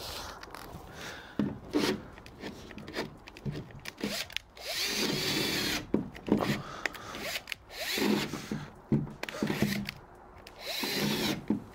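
Cordless drill boring holes through a wooden van floor panel, running in several short bursts with pauses between, the longest about a second and a half. The user thinks the drill's battery is dying.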